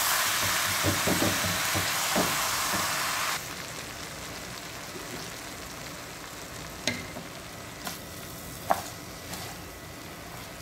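Rice tipped from a colander into a hot pot of browned vermicelli, sizzling loudly. About three seconds in the hiss drops sharply to a quieter sizzle. A few sharp knocks follow as a wooden spoon stirs the rice against the pot.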